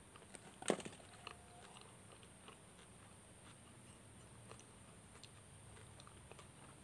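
Quiet eating sounds: soft chewing and small clicks as a burger bun and fried chicken are pulled apart by hand, with one sharper click just under a second in.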